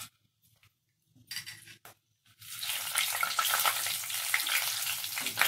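Whole spices (bay leaves, dried red chillies, cinnamon, cardamom, cloves and peppercorns) frying in hot oil and ghee in a kadai. After a quiet start with a few faint clicks, a loud sizzle full of crackles sets in about halfway through.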